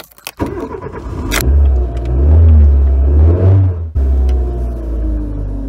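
Car engine catching about half a second in and revving hard, the pitch climbing. It cuts off sharply near four seconds, then runs on with its pitch slowly falling.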